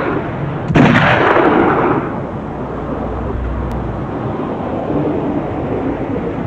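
A single handgun shot about a second in, with a booming echo that dies away over the next second, followed by a steady low rushing noise.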